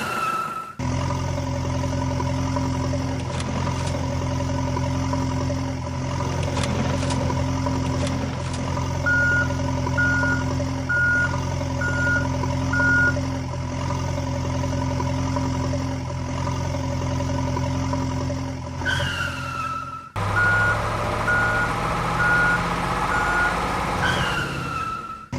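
Heavy construction vehicle engine running steadily, with a reversing alarm beeping about once a second in two runs of several beeps. A short falling tone sounds twice.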